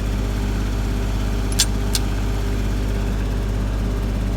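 Tractor engine running steadily, with two sharp metallic clicks about a second and a half in.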